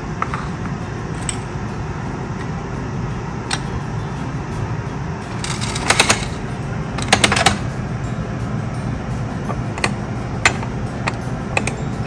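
Metal crank of a bulk candy dispenser being turned, clicking and rattling as small hard candies tumble out into a paper cup, in two quick clusters about six and seven seconds in, with a few single clicks around them. A steady low background sound runs underneath.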